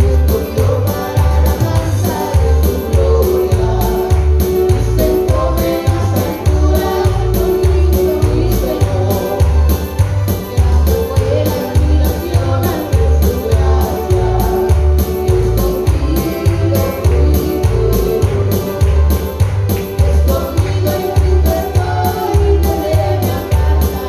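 Gospel praise music: voices singing over a band with a steady, heavy bass beat and a regular high percussion tick.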